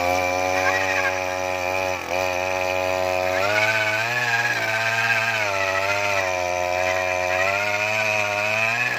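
Zongshen G45 earth auger's small petrol engine running under load as the auger bores into the soil. Its steady note dips and recovers a few times as the bit bites in.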